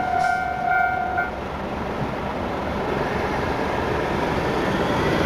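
Japanese railway level-crossing warning bell ringing in a steady repeating tone, a sound the uploader finds slightly unusual for a crossing, then cutting off about a second in. A steady rumbling noise of passing traffic or a train carries on and slowly grows louder toward the end.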